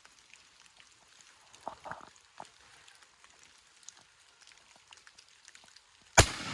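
Faint crackling with scattered small ticks and a few louder clicks, then one loud, sharp bang near the end that dies away over under a second.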